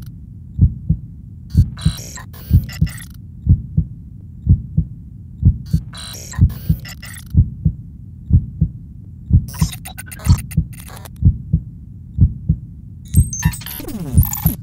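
Heartbeat sound effect: low double thumps, steady at about one beat a second, with bursts of high crackling noise coming and going over it. Near the end a falling whine sweeps down.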